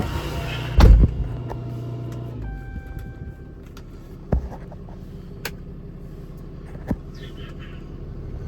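An engine idling steadily, then shutting off about two and a half seconds in, with a heavy thump about a second in. A short steady tone follows, then a few scattered clicks and knocks.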